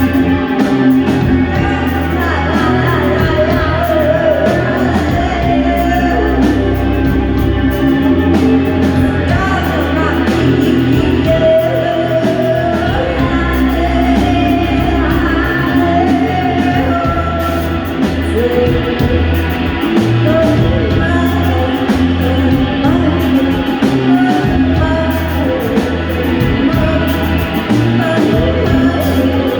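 A band playing a song live: a singer's voice over guitar, bass and drums, with a sustained bass line and regular cymbal hits.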